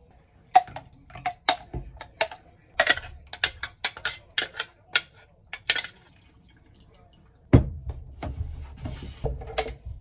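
A metal spoon clinking against a glass tumbler, a quick run of a dozen or so sharp clinks, as yogurt is scooped into the glass. About seven and a half seconds in there is a thump, followed by softer clattering.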